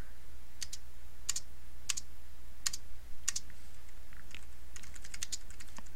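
Computer keyboard keys being pressed: single key presses about every two-thirds of a second, then a quick run of typing in the last two seconds. A low steady hum runs underneath.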